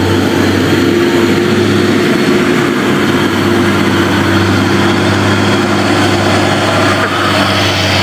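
Hino 500 dump truck's diesel engine running steadily and loudly under load as the truck climbs and drives up close past.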